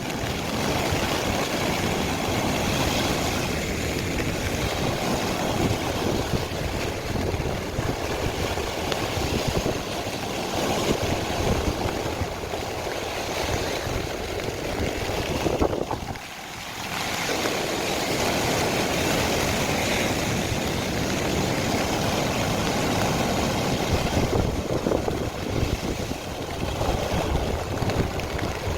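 Heavy sea surf breaking and washing onto the beach without a pause, a loud, continuous rushing noise that eases briefly about sixteen seconds in.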